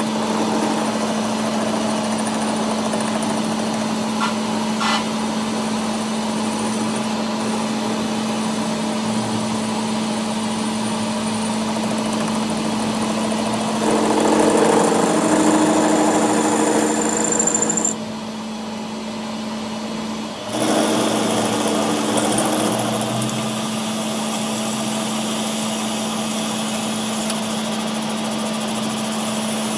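Workshop machine running with a steady motor hum; it gets louder for a few seconds about halfway through, then drops off briefly before returning.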